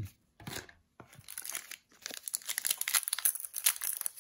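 A trading card booster pack's shiny plastic wrapper being crinkled and torn open by hand. After a short rustle, a dense crackling builds from about two seconds in.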